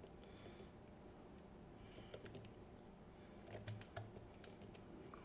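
Faint, scattered clicks of a lock pick working the pins inside an ABUS TS 5000 pin-tumbler cylinder held under clockwise tension, as pin number 6 is being set. The clicks grow more frequent from about two seconds in, over a faint low hum.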